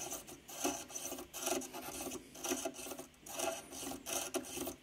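Soldering iron tip scraping and rubbing along molten solder and tinned copper wire on a circuit board, in a run of short irregular strokes, while heating a row of joints to free a through-hole Ethernet connector.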